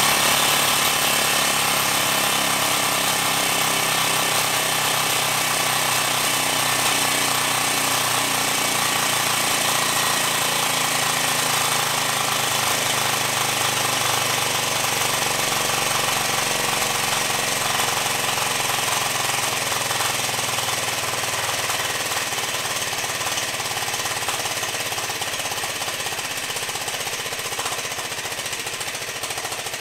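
3D-printed compressed air engine running fast and steady on air from a plastic bottle pumped to 60 psi, a dense mechanical chatter of its valve and exhaust. Over the last several seconds it gets gradually quieter as the bottle's pressure runs down.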